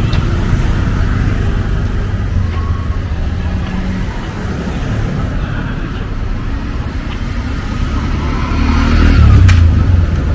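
City street traffic: passing vehicle engines under a general roadway noise, swelling to the loudest pass about nine seconds in, with voices in the background.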